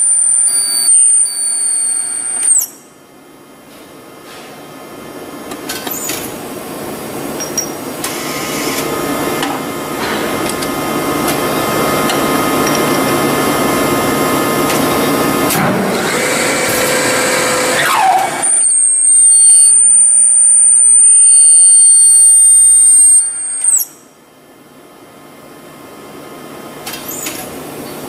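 Industrial machines running in several short takes: a high steady whine, then a rush of mechanical noise that builds over several seconds and ends in a falling tone. The high whine returns and cuts off suddenly, and the noise starts to build again.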